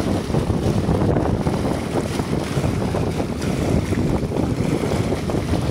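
Small boat under way at speed: water splashing and rushing along the hull and wind buffeting the microphone, over a steady low engine drone.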